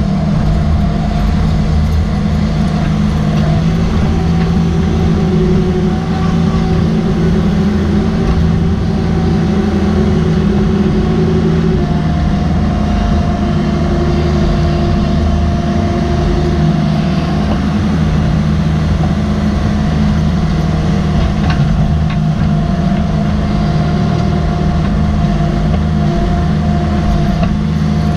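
Caterpillar 305.5E mini excavator's diesel engine and hydraulics running under load as it digs a trench in rocky ground and dumps spoil, heard from the operator's seat: a steady engine drone with a whine over it that shifts pitch now and then.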